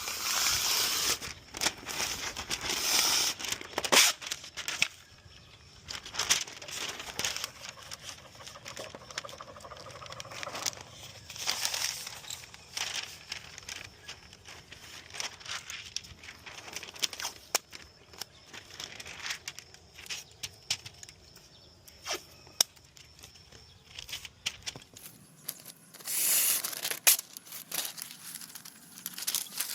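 Irregular rustling and scraping in bursts a second or two long, with scattered sharp clicks between, from hands working caulk into the joints of a wooden garage door with a caulking gun.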